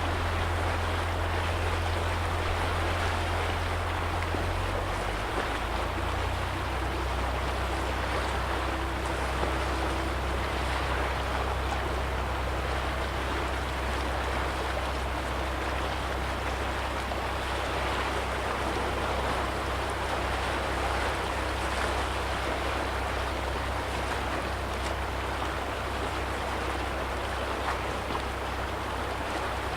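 Small lake waves lapping against the shore, an even rushing wash. Underneath is a low steady rumble that drops in pitch about five seconds in.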